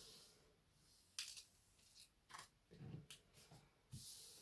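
Faint, scattered rustles and light taps from handling a large diamond-painting canvas sheet, heard a few times over a few seconds.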